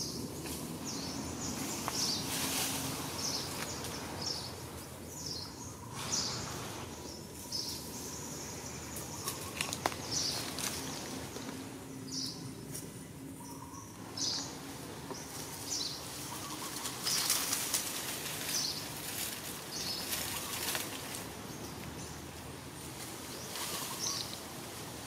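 Rustling of leaves and branches in tree canopy, in several surges, with short high bird chirps repeating every second or two.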